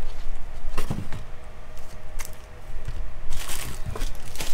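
Sealed foil baseball-card packs and a cardboard hobby box being handled: a few light knocks and a short crinkling rustle a little past the middle.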